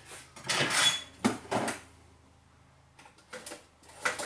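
Needle-nose pliers scraping and clicking against a wire terminal as it is pushed into a plastic electrical connector, re-seating the terminal in the oil pressure sensor connector. A rustling scrape about half a second in, then a couple of sharp clicks, a short pause, and a few light ticks near the end.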